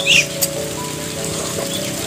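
Background music with sustained notes, over a wet crackle of Muscovy ducks and chickens pecking and dabbling in wet mash in a metal bowl, with one sharper click about half a second in.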